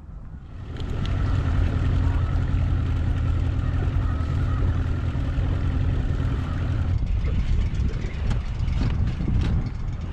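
Outboard boat motor coming up about a second in and running steadily, with a low drone and a steady higher hum. The hum drops out about seven seconds in while the low noise carries on.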